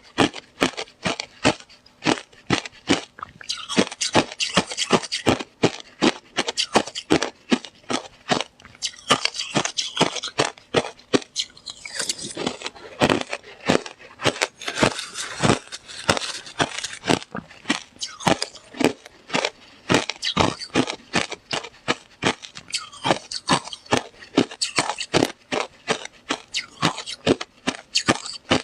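Slush ice being bitten and chewed close to the microphone: a continuous run of sharp crunches, several a second, with gritty scraping between bites.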